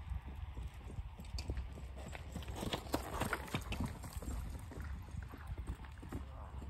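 Hoofbeats of a horse loping around a dirt arena on a lunge line, a quick run of dull thuds that grows loudest about halfway through as the horse passes close by.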